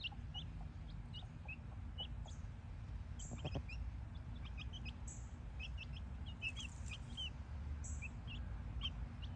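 Young chicks peeping: short, high calls scattered irregularly while they peck at feed, over a steady low rumble.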